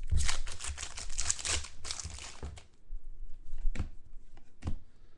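Foil wrapper of a football trading card pack being torn open and crinkled, a dense crackling for about two and a half seconds, followed by a few separate soft clicks as the cards are handled.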